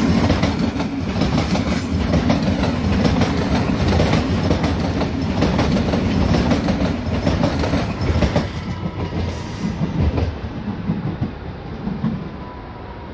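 An S-Bahn Rhein-Main electric multiple unit passing close, its wheels clattering over the rail joints, then fading as it pulls away over the last few seconds with a few last clacks.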